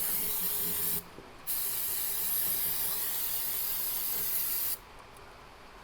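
Pressurized spray hissing in two bursts: a short one that stops about a second in, then after a brief pause a longer one of about three seconds that cuts off suddenly.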